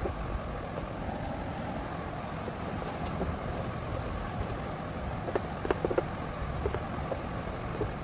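Steady low background rumble, with a few light clicks or taps in the second half.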